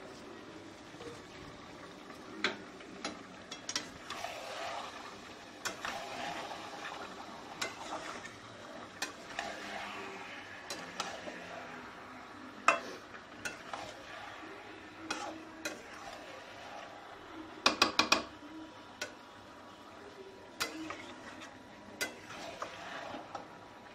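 A spatula stirring and scraping chicken as it fries in masala in a pan, over a faint sizzle. The spatula knocks on the pan at irregular intervals, with one loud tap about halfway and a quick run of four taps later on.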